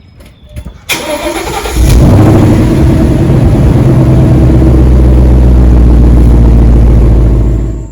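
Mustang GT's Coyote 5.0 V8 cranking and catching with a rising flare, then running loud and steady at a high idle through its axle-back exhaust. The sound cuts off suddenly near the end.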